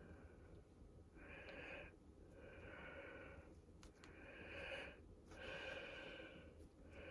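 Faint breathing close to the microphone: a run of soft breaths, each lasting about a second, with a couple of tiny clicks in the middle.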